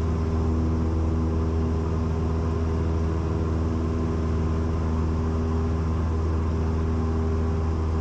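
Cessna 172's piston engine and propeller at full climb power, a steady drone that holds one pitch throughout.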